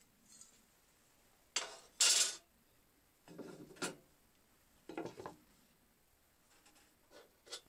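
Metal tools being handled and set down on a wooden board: a run of clattering knocks and short scrapes from an aluminium square and a steel guide plate, loudest about two seconds in.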